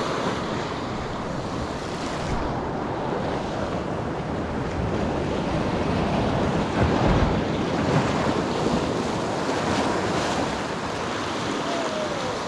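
Small sea waves washing and breaking over a rocky shore ledge, a steady surging wash, with wind buffeting the microphone in a few low thumps.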